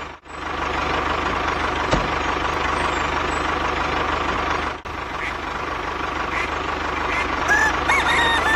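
Small motor of a DIY model machine running steadily with a thin high whine, cutting out briefly just after the start and again around the five-second mark.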